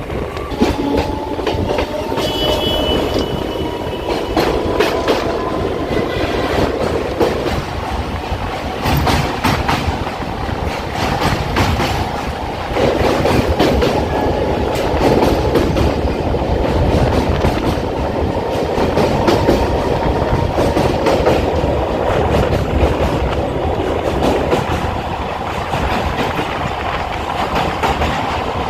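Electric suburban local train running along the track, its wheels clattering over rail joints in a continuous rumble, with a faint steady whine underneath.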